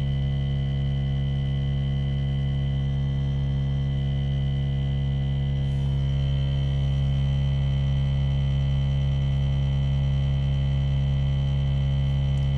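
ARB CKMA12 single-motor 12-volt onboard air compressor running under load as it inflates a 35-inch tire, a constant low hum with a steady high whine over it.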